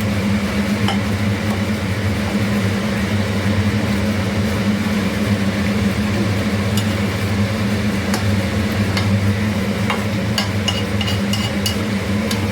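Katla fish korma simmering in the pan with a light sizzle over a steady low hum, and a few sharp clicks of a utensil against the pan, more of them near the end.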